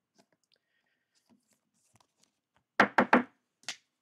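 A plastic card top loader knocked on a tabletop: three quick sharp taps near the end, then a fourth, after faint clicks of the plastic being handled.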